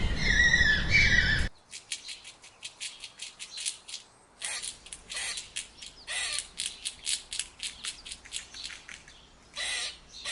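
High-pitched animal squealing over a rumbling background that cuts off sharply about a second and a half in, followed by a bird's rapid short chirps and squawks in runs of several a second, with a few longer calls.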